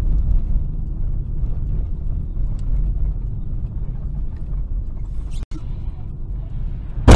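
Steady low rumble of a moving car, heard from inside the cabin by a dashcam: engine and tyre noise on a wet road. The sound cuts out for an instant about five seconds in, and a sudden loud bang comes at the very end.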